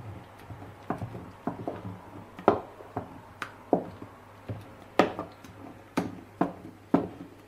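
Wooden spatula scraping and knocking against a perforated stainless-steel strainer as thick tomato and pepper purée is pushed through it. The strokes come irregularly, about two a second.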